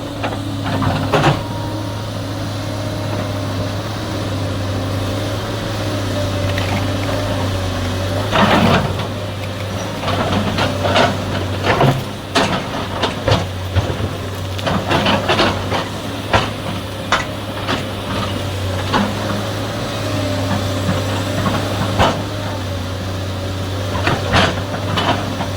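SANY excavator's diesel engine running steadily, with scattered sharp knocks and clanks from about eight seconds in.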